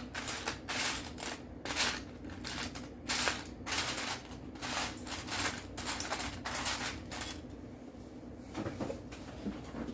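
Loose plastic Lego bricks clattering and clicking as a hand rummages through a pile of pieces. The clatter goes on in quick runs and dies down about seven seconds in, leaving a few faint clicks.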